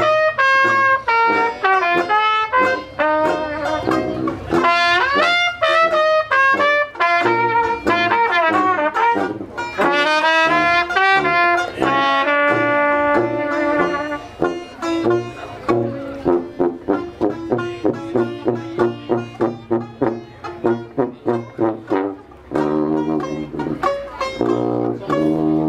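Traditional jazz band playing: a trumpet leads the melody over a banjo and sousaphone. About halfway through, the trumpet stops, leaving the banjo's steady strummed chords and the sousaphone bass.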